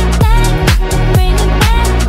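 Electronic dance music with a steady kick drum, about two beats a second, under synth tones.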